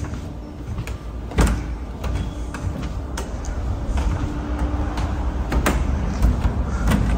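Footsteps on wooden floorboards with a steady low rumble of handling noise from a phone camera being carried, broken by scattered sharp knocks.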